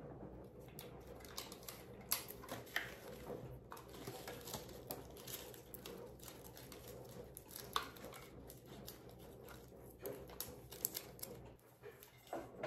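Light rustling and crinkling of paper and foil party decorations being handled, with scattered small clicks and taps.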